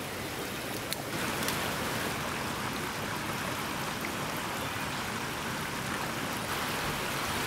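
Backpacking canister gas stove burner running with a steady hiss under a pot of simmering fruit, over the rush of a creek; the burner is shut off near the end.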